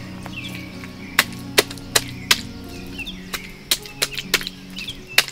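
Sharp slaps of lumps of wet clay being thrown and packed by hand, coming in short quick runs of three or four, over soft background music.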